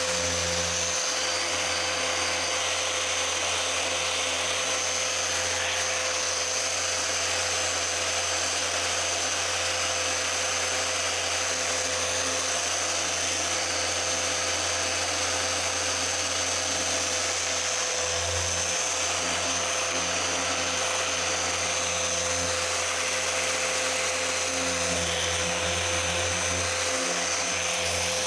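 Electric machine polisher running steadily against car paint, correcting heavy swirl marks.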